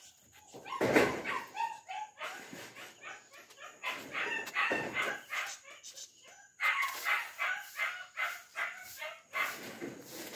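Two-month-old German shepherd puppy yapping in short, high, repeated barks while it chases a plastic bottle dragged on a string across concrete, with a loud clatter about a second in.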